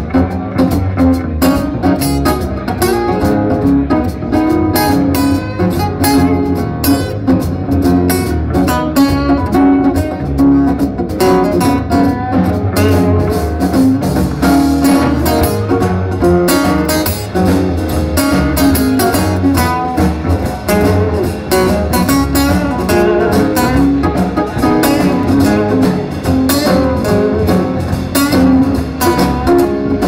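Live band playing an instrumental passage on two acoustic guitars over an upright double bass, with no singing.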